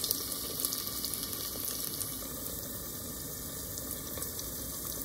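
Battered carrot and pumpkin slices deep-frying in oil at about 160°C: a steady bubbling hiss with small crackles.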